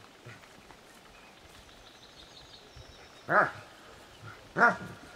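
Dog barking twice during rough play between two dogs, two short pitched barks about a second and a half apart.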